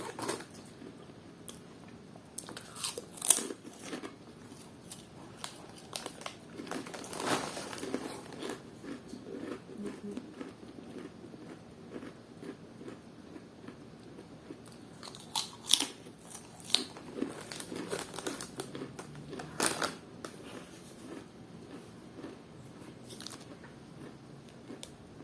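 Close-up chewing and biting of a crunchy bacon-flavoured snack, irregular crisp crunches with a few louder bites, plus some crinkling of the snack packet.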